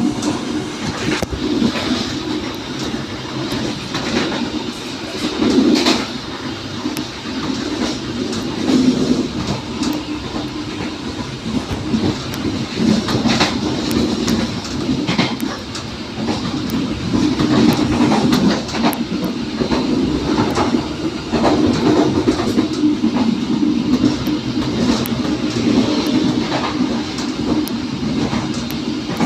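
A passenger train running along the track, with a steady low rumble from the wheels and rails and sharp clicks as the wheels pass over rail joints.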